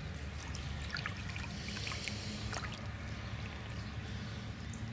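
Lake water gently splashing and trickling at the bank as a large common carp is released from a wet sling and swims away, with scattered small splashes over a low steady rumble.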